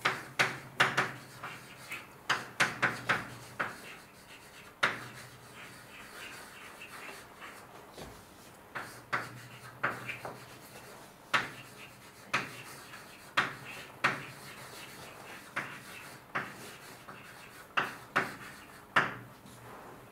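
Writing on a lecture-room board: irregular sharp taps and scratches as strokes are marked, several in quick succession at first, then about one a second.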